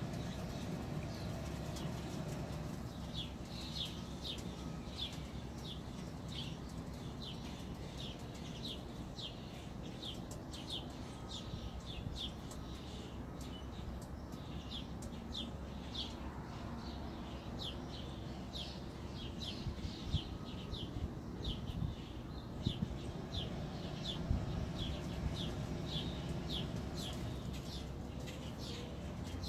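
A bird chirping over and over, about two short chirps a second, over a steady low hum. A few knocks come in the second half.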